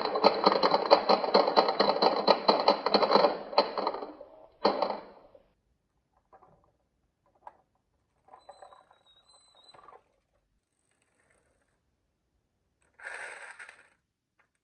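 Many marbles clattering rapidly down a wooden HABA marble-run slope. The sound stops about four seconds in, leaving a single click, a few faint scattered clicks and a short rattle near the end.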